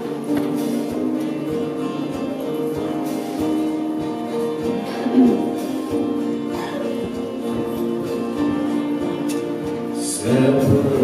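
Church music group playing a song introduction, with guitar over sustained chords. About ten seconds in the music gets louder as more of the band comes in.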